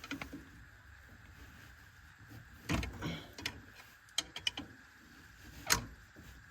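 Metal clinks, scrapes and knocks of a brake caliper being worked off its disc rotor by hand, with two heavier knocks about three seconds and five and a half seconds in and a quick run of light ticks between them.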